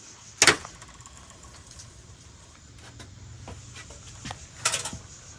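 A sharp knock about half a second in, a few light clicks, then a short cluster of knocks near the end, from hardware and hand tools being handled.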